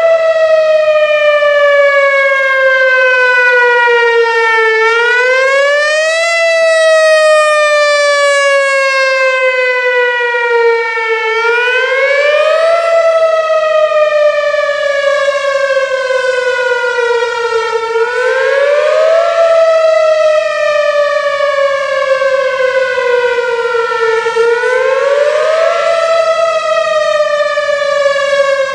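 Whelen Vortex electronic outdoor warning siren sounding its wail test tone, very loud. The pitch climbs quickly, then slides down slowly over about five seconds, and this cycle repeats about four times.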